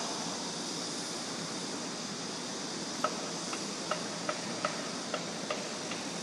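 Steady background hiss at an open-air railway platform. About halfway through, short, sharp ticks start, two or three a second.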